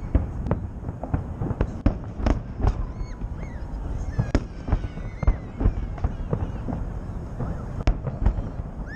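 Festive fireworks salute: an irregular series of sharp bangs as shells burst overhead, each trailing off in a short echo, over a continuous low rumble, with crowd voices mixed in.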